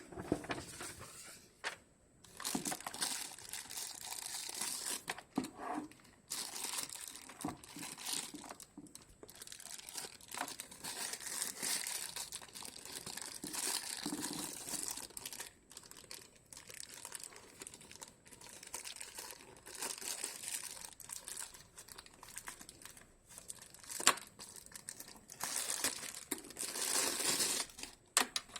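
Packaging crinkling and rustling in irregular bursts as it is handled and unwrapped, with a sharp click about 24 seconds in.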